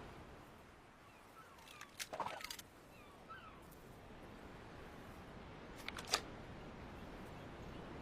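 Faint outdoor ambience with a few sharp clicks, a quick cluster about two seconds in and another about six seconds in, and faint bird chirps in between.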